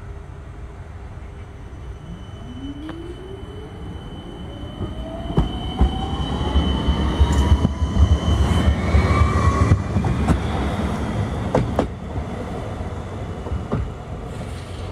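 Melbourne D1-class Siemens Combino tram pulling away and accelerating, its traction motor whine rising steadily in pitch, with a high steady tone over it for a few seconds. As it passes close, a heavy rumble peaks, then fades as it runs off, with sharp clicks as the wheels cross rail joints.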